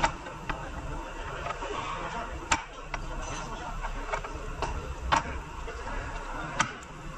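Irregular sharp metal clicks and taps, about eight of them, from hand tools and parts being handled at a car's front wheel hub, over a steady background hiss.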